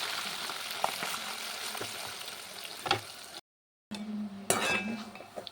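Chicken pieces frying in hot oil in a pan: a steady sizzle that slowly fades, with a few light clicks and scrapes of stirring. The sound breaks off a little after three seconds in, and is followed by a few utensil clinks.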